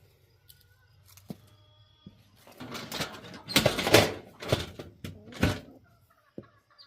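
Chicken feed being poured into a feeder: four rattling, rustling pours in quick succession over about three seconds, starting near the middle.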